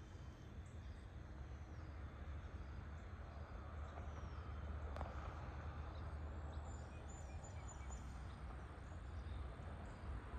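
Quiet rural evening outdoor ambience: a steady low rumble under a faint even hiss, with a short run of faint high chirps about seven seconds in.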